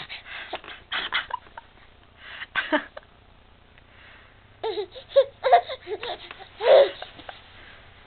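A baby's happy vocalising: short squeals and giggles in scattered bursts, with a quiet spell in the middle and the loudest squeal near the end.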